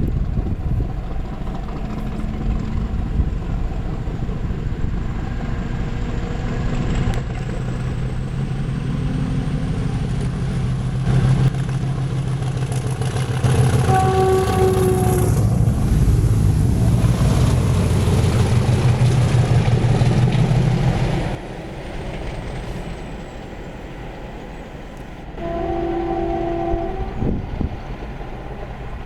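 Class 50 diesel locomotive with an English Electric 16-cylinder engine running hard as it approaches and passes, its high 'Hoover' whine rising and then falling away. The horn sounds briefly about halfway through and again near the end.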